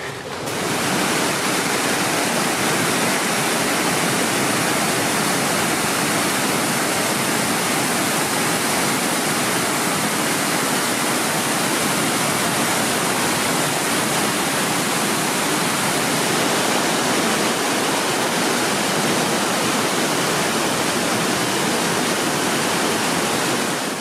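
Steady rush of a wide waterfall in heavy flow, the water crashing onto a rocky ledge below. It sets in about half a second in and fades out at the very end.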